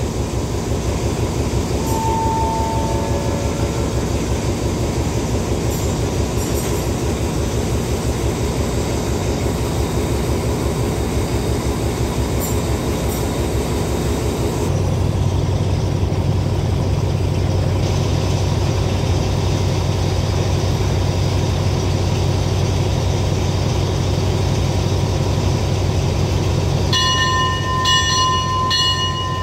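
Diesel passenger train standing at the platform, its engine running with a steady low rumble; a deeper steady hum joins about halfway through. Near the end a pulsing high-pitched tone starts up.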